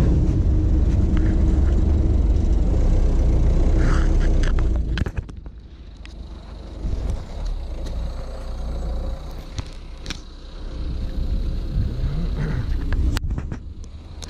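Engine of a Peugeot Partner van running close by, a steady low rumble that drops off abruptly about five seconds in. After that, quieter street background with a few sharp clicks and knocks, the loudest near the end.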